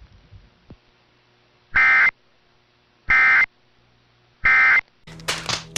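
Three short, identical bursts of Emergency Alert System SAME digital data tones, a harsh two-tone warble about a third of a second each and roughly one and a half seconds apart; bursts this short match the end-of-message code. Other broadcast audio cuts in near the end.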